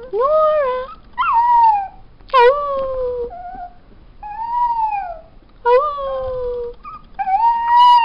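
New Guinea singing dog puppy howling in a string of about six short, high-pitched calls, each under a second, most sliding down in pitch at the end.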